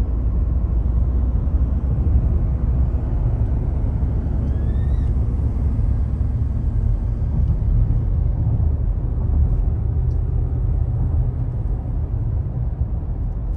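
Steady road and engine rumble heard inside the cabin of a car moving at road speed.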